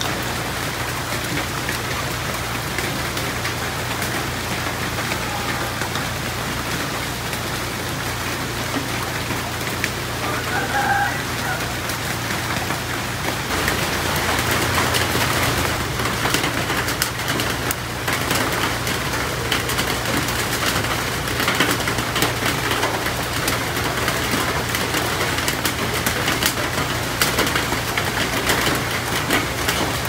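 Steady rain falling on running water and leaves. Just before halfway it gets louder, with many sharp drop ticks on the foliage, and a bird calls briefly about a third of the way in.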